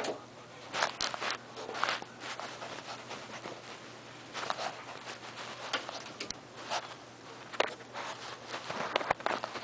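Irregular rustling and scuffing very close to the microphone: a small white long-haired dog rubbing its head and face on a blanket, the short scrapes coming every second or so.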